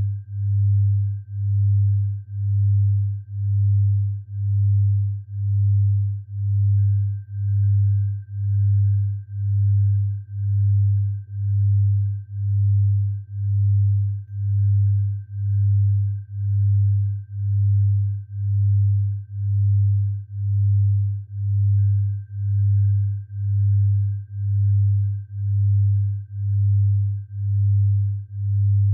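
Synthesized low sine tone for tinnitus sound therapy, swelling and fading about once a second, with a faint steady high tone held above it.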